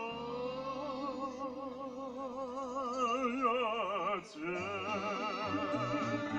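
A singer in an operatic style holding long notes with wide vibrato over steady instrumental accompaniment. The voice breaks off briefly a little after four seconds, then takes up the next held note.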